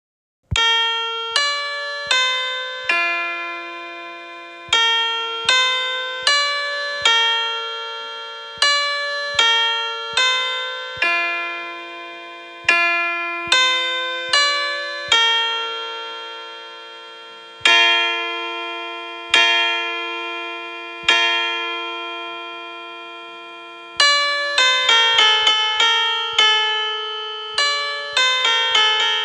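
Piano notes imitating church bells: single struck notes about a half-second to a second apart, each ringing out and fading, with a quicker run of notes near the end.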